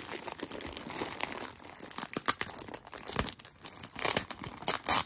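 Clear plastic bag and packing tape crinkling and crackling as fingers pick at the taped top of the bag, in irregular bursts that grow louder and denser near the end.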